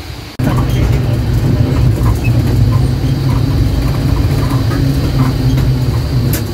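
Engine of the safari ride vehicle running with a steady low rumble, which comes in abruptly about half a second in.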